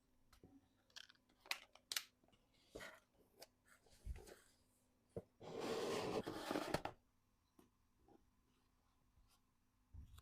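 Small clicks and taps of packaging being handled, with one louder rustle of wrapping lasting about a second and a half near the middle.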